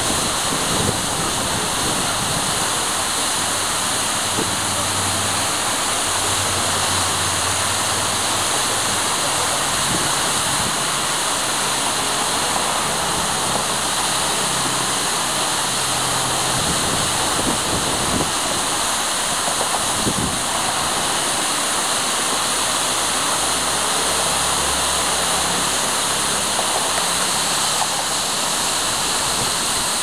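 A tall waterfall, about 55 m high, roaring steadily: a constant, even rush of water falling onto rock.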